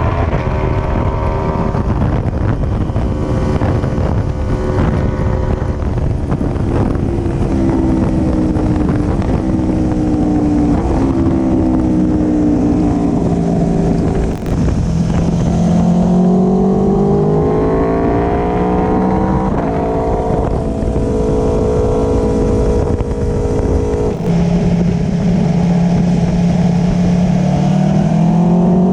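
2017 Aprilia Tuono V4 Factory's V4 engine through an Akrapovic slip-on exhaust, heard on board while riding. The engine note drops, climbs and holds with the throttle, with a couple of brief dips, over a rush of wind and road noise.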